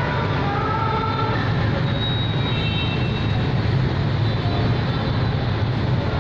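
Steady low hum and rush of the ventilation fans in an underground parking garage.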